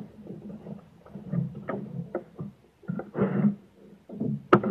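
Irregular knocks and clatter of a kayak and its paddle against a dock, with a short wash of water about three seconds in and one sharp knock near the end.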